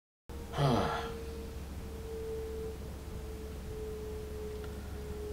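Airplane passing overhead: a steady, faint drone held at one pitch over low room hum. About half a second in, a short vocal sound falls in pitch.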